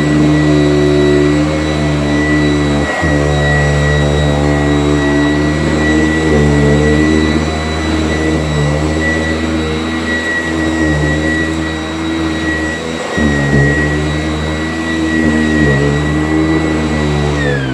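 Sanitaire S675 upright vacuum cleaner running steadily with a high motor whine, then switched off near the end, its motor winding down.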